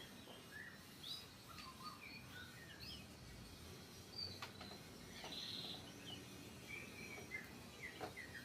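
Faint, scattered bird chirps over low background noise, with a couple of soft clicks.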